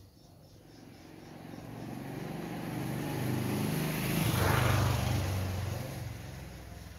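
A motor vehicle driving past, its engine growing louder to a peak about four and a half seconds in, then fading away.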